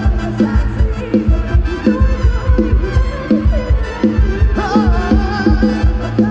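Loud Thai rot hae band music played through a sound-truck's speaker stack: a fast, even drum beat with a gliding melody line over it.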